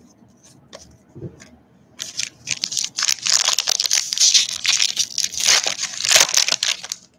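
A foil trading-card pack being torn open, its wrapper crackling and crinkling loudly. The crackling starts about two seconds in and stops abruptly near the end.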